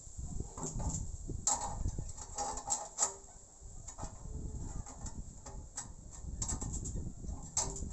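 Irregular light clinks and taps of thin steel plates knocking against each other and against a square steel-tube rocket stove as they are fitted together into its top, with some handling and scraping between. The sharpest tap comes about three seconds in.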